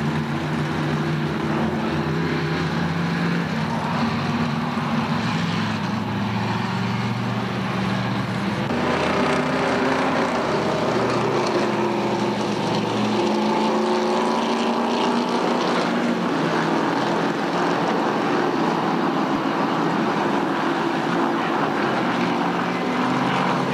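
Late model stock car V8 engines running at speed on a paved oval, several engines at once. Their notes rise and fall as the cars come and go and change throttle.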